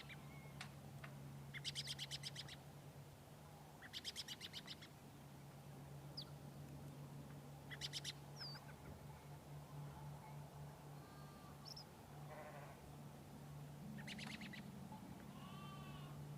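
Farm ambience: sheep bleating now and then among songbirds' short, rapid high trills, which come every few seconds, over a faint steady low hum.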